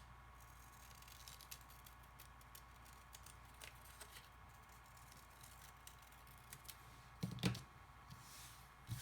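Scissors snipping through paper in small, quiet cuts, with a louder knock and rustle of paper near the end.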